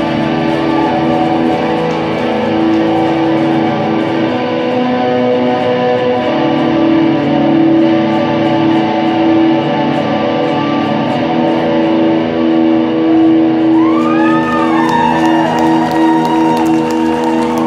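Live rock band playing loud, sustained electric guitar chords that ring out steadily. Near the end a few high pitch glides that rise and fall come in over the held chords.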